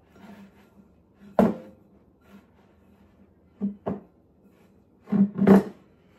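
Hands squeezing and pressing dough in a glass mixing bowl, the bowl knocking against the wooden table five times with a short ring, a pair of these a little past the middle and the loudest pair near the end.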